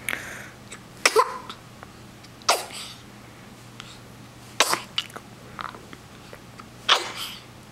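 A baby girl hiccupping, five short, sharp hics about one to two seconds apart.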